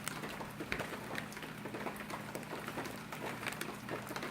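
Plastic ration packaging crinkling and crackling as the pouches are handled, with irregular small clicks throughout.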